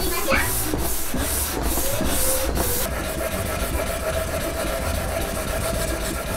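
Hand sander with fine 800-grit sandpaper rubbing back and forth on a wooden cutting board. The quick strokes come about three a second, then give way to a softer, steadier rubbing about three seconds in as the sander works along the board's edge.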